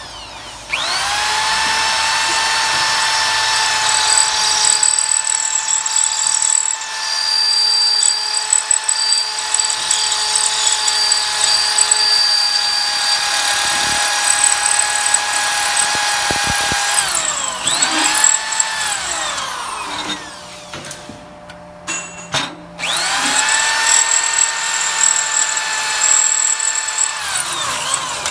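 Electric drill with a 1/4-inch bit drilling out steel rivets: it spins up about a second in, runs at a steady pitch for about sixteen seconds and winds down. After a short pause with a few clicks it runs again for about four seconds near the end and winds down.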